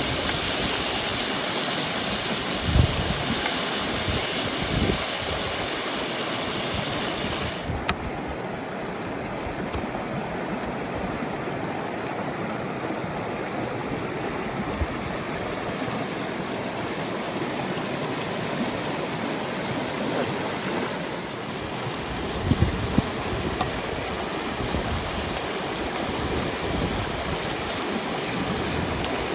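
A river or stream flowing steadily, with a few low thumps. About eight seconds in, the higher hiss of the water drops away suddenly and the rushing sounds duller.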